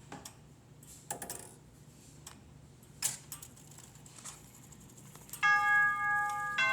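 Grandfather clock ticking, then about five seconds in its chime starts ringing for the 8 o'clock hour: two bell-like notes of different pitch, a little over a second apart, each ringing on.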